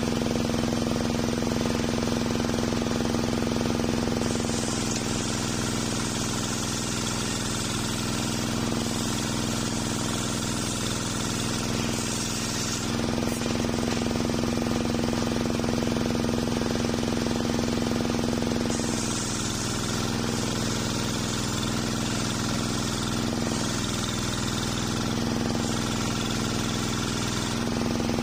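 Homemade circular sawmill running steadily while its large blade rips an old waru (sea hibiscus) log lengthwise into boards. Two cutting passes, starting about four and a half seconds in and again near the middle, each last about eight seconds and add a high, rasping hiss over the motor's hum, which sags slightly under the load.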